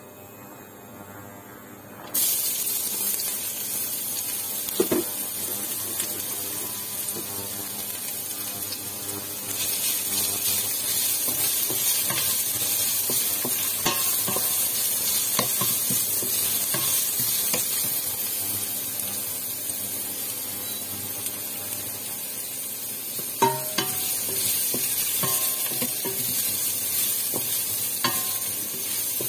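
Julienned ginger frying in hot oil in a stainless steel pot: a loud sizzle starts suddenly about two seconds in and grows louder again around nine seconds in, while a wooden spatula stirs it and knocks against the pot now and then.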